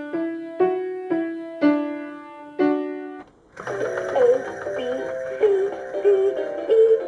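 A short electric-piano jingle, single notes about two a second, ends about three seconds in. Then a LeapFrog Spinning Discovery Ball starts playing its electronic music tune as the ball spins.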